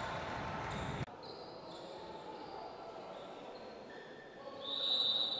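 Echoing sound of an indoor handball match: ball bounces, players' feet and voices in a large sports hall. Near the end a high, steady whistle sounds for about a second, fitting a referee's whistle restarting play.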